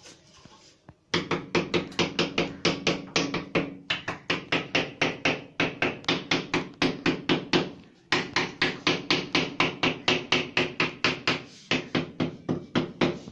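Rapid tapping of a hand tool on freshly laid strip mosaic tiles, about four sharp taps a second in three runs with brief pauses, bedding the tiles into the adhesive on the wall.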